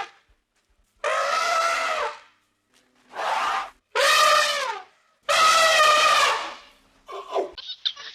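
An animal calling four times, each call a drawn-out pitched cry of about a second, the later ones bending down in pitch as they end, followed by a few short choppy sounds near the end.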